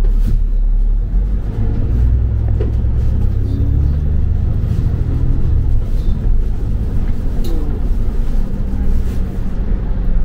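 London double-decker bus running on the road, heard from on board: a steady low engine drone and road rumble that is strongest in the first half, with a few light clicks or rattles.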